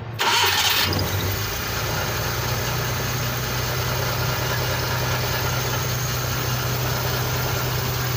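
Suzuki F6A three-cylinder multicab engine starting up without the accelerator pressed, with a loud burst as it catches within the first second, then idling steadily on new spark plugs.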